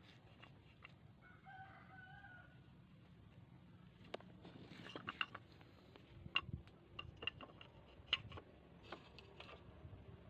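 A rooster crows once, faintly, about a second and a half in. From about four seconds on come a series of sharp clicks and knocks, as wooden knife sheaths and blades are handled; these are the loudest sounds.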